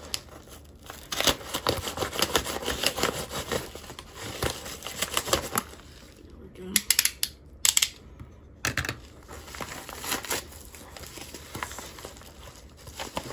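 Yellow padded bubble mailer being slit open with a box cutter and handled: irregular crinkling and tearing of the paper envelope, with a few sharp clicks around the middle.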